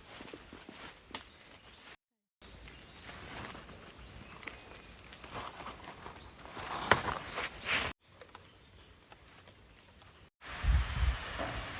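Forest ambience with a steady, high-pitched insect drone and the rustling and crackle of leaves, twigs and footsteps as pods are gathered from shrubs. The rustling is loudest a little past the middle, and a low buffeting hits the microphone near the end.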